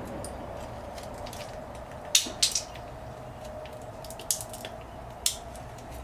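Blue-and-gold macaw cracking and gnawing at a walnut shell with its beak: two sharp cracks close together about two seconds in, then two more spaced about a second apart later on.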